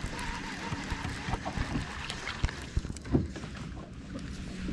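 Light clicks and knocks of a baitcasting reel being handled, over a low steady hum, with one louder knock about three seconds in.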